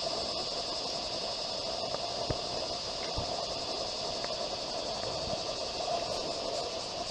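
Steady outdoor background hum and hiss, with a high constant trill typical of insects and a few faint low taps.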